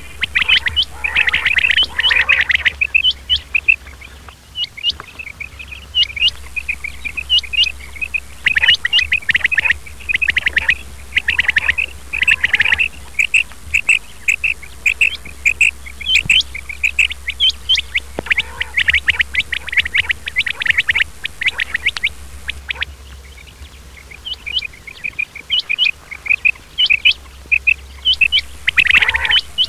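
Male quail (batair) calling: quick runs of short, sharp notes repeated over and over, broken by a few quieter pauses.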